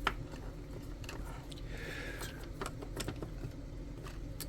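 Scattered small clicks and taps from handling wire, connectors and tools at a workbench, a sharper click right at the start, over a steady low hum.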